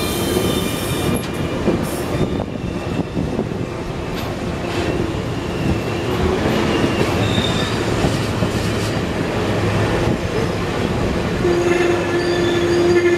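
A train rolling along the tracks, steel wheels squealing and clattering over the rails. A steady squealing tone comes in near the end and is the loudest part.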